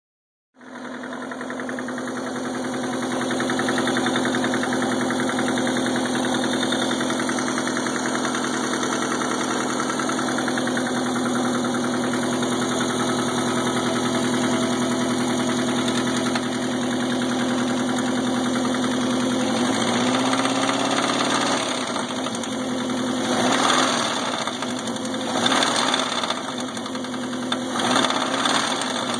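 Subaru EA81 flat-four engine running with a horrid mechanical noise, although it idles smoothly with good oil pressure. Its speed rises and falls a few times in the last several seconds.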